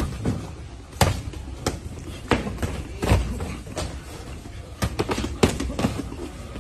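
Boxing gloves landing in sparring: an irregular run of sharp slaps and thuds from punches, with scuffs of footwork on the mats. The loudest hits come about a second in and a little past the five-second mark.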